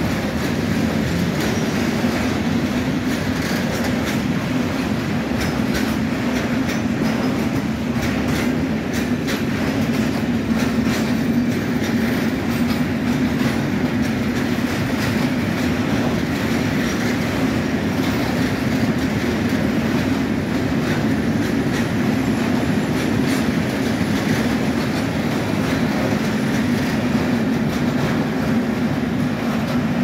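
A long freight train of Eas open goods wagons rolls steadily past: a continuous rumble of steel wheels on the rails, with a rapid clickety-clack as the wheelsets pass over rail joints.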